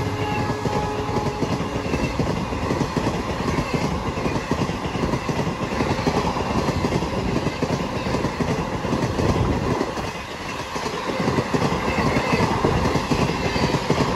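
Indian Railways passenger coaches passing at speed, their wheels clattering over the rail joints in a dense, continuous rush of noise that dips briefly about ten seconds in.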